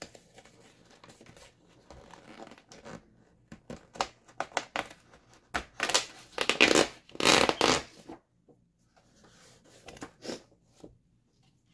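A paper page being torn out of a craft book, with the loudest ripping about halfway through. It is surrounded by scattered crackles and rustling as the paper is handled and pages turn.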